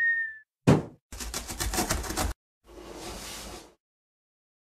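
Cartoon sound effects for an animated intro: a short high tone fading out, a sharp thud about 0.7 s in, then a quick rattle of about ten knocks a second for about a second, then a quieter whoosh for about a second.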